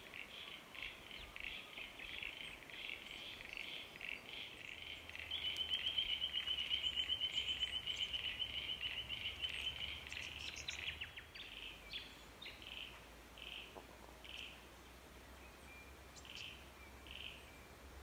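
Superb fairy-wrens calling: a run of short, evenly repeated chirps, then a long rapid trill from about five to ten seconds in, then a few scattered chirps.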